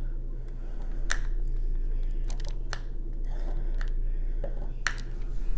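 Light, scattered clicks and taps of a diamond painting multi-placer pen pressing drills onto the canvas, about six in all at irregular intervals, over a steady low electrical hum.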